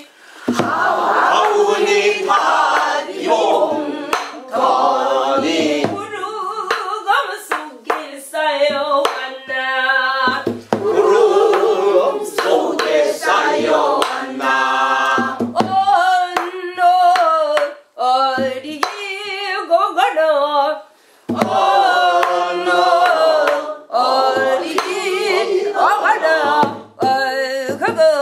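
Several voices singing a Korean folk song (minyo) together, with hand clapping keeping time. The sung notes waver in a wide, ornamented vibrato, and the singing breaks off briefly a couple of times.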